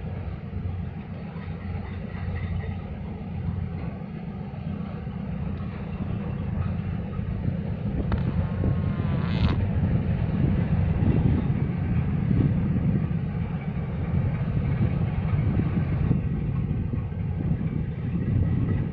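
Low, steady rumble from a 2,500-TEU container ship passing close by, growing louder over the first half. A short higher sound comes about eight to nine seconds in and ends in a sharp click.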